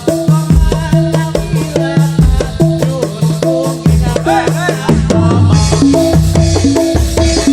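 Topeng Ireng accompaniment music: drums beating a steady rhythm under repeating pitched melodic notes, with rattling percussion.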